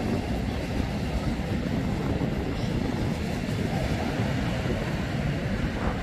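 Steady wind noise rumbling on the microphone at the seashore, with small waves washing up on the beach.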